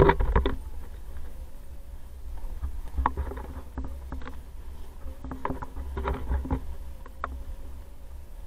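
Inline skate wheels rolling, a steady low rumble, with bursts of clacking and scraping from the skates about every three seconds.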